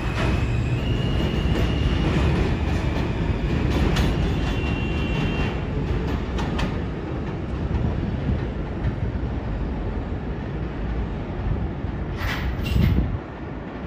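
New York City subway L train running on the track: a steady heavy rumble of wheels on rail, with a thin high wheel squeal over the first few seconds and a few sharp clicks. The rumble drops off sharply near the end.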